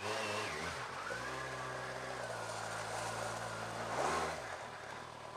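Kawasaki Z1000SX's inline-four engine running at low revs while the new bike is being run in. There is a short rise and fall in revs about four seconds in.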